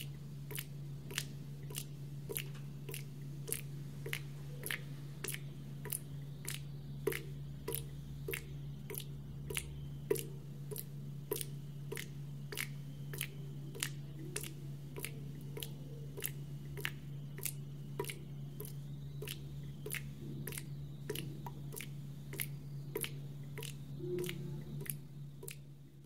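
Water dripping in a steady, even rhythm, about two drops a second, each a short sharp drip, over a steady low hum.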